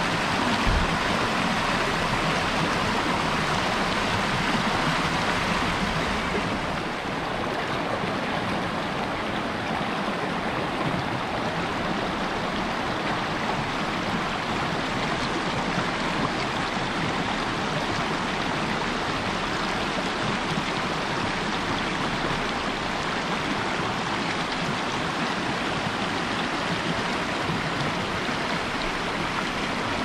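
Rocky mountain stream rushing over boulders in small cascades, a steady rush of water that eases slightly about seven seconds in.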